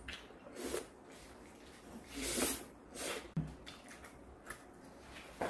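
Eating sounds: a handful of short, separate wet noises of chewing and slurping food, the longest about two seconds in.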